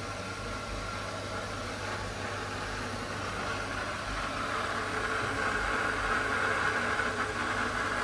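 HW-5000 aquarium canister filter running steadily just after start-up, a low pump hum under a hiss of water and air moving through the hoses that grows louder over the second half, as the filter is still bleeding air.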